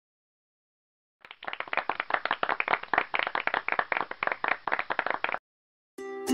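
Recorded applause sound effect: a group clapping, starting about a second in and lasting about four seconds before it cuts off abruptly, marking a correct quiz answer. Ukulele music starts right at the end.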